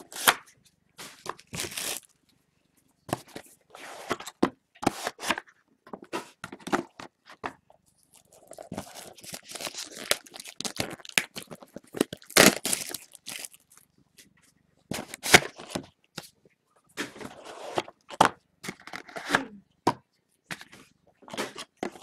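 Irregular crinkling and tearing of plastic wrap with sharp knocks and scrapes of cardboard, as sealed Topps Triple Threads football card boxes are unwrapped and set down on a table.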